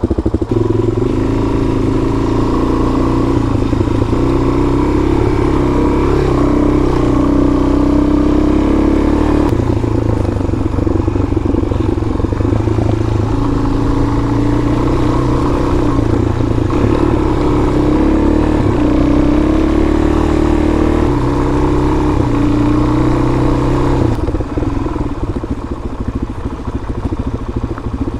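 Suzuki DR-Z400's single-cylinder four-stroke engine running while the bike is ridden along a dirt trail. The engine note steps up and down several times as it is throttled and shifted, and it eases off near the end.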